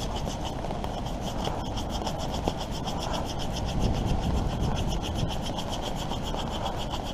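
Small hand saw cutting across the end of a carved wooden spoon in quick, even back-and-forth strokes, about five a second, taking off the split end to flatten it.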